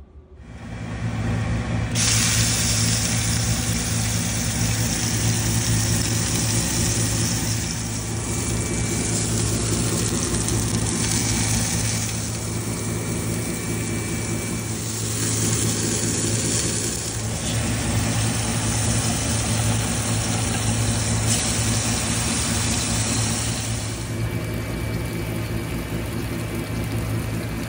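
Food sizzling as it sears in hot oiled cast iron pans, a steady hiss that sets in about two seconds in and shifts in level every few seconds, over a constant low mechanical hum.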